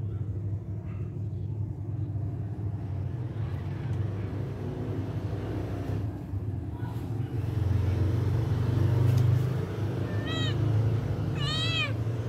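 A cat meows twice near the end, short rising-then-falling mews. Under it a steady low rumble swells about eight seconds in.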